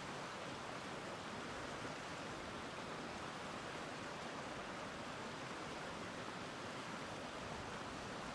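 Shallow river running fast over rocks and small rapids: a steady rushing of water.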